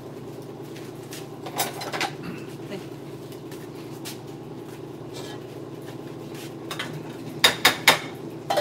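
Metal pots and lids knocking and clanking on a gas stove: a few light knocks about a second and a half in, then three sharp clanks in quick succession near the end, over a steady low hum.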